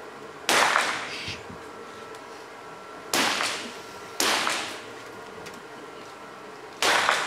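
Four single shots from .22 calibre 50 m free pistols, fired at uneven intervals by different shooters, each a sharp crack with a short ring of echo.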